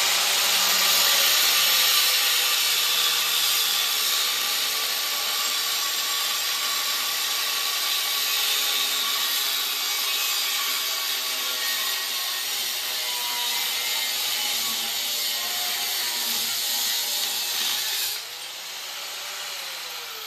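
Angle grinder with a DeWalt cutoff wheel cutting through steel plate: a loud, steady, hissing screech. About eighteen seconds in the cut stops, and the grinder's motor runs on more quietly.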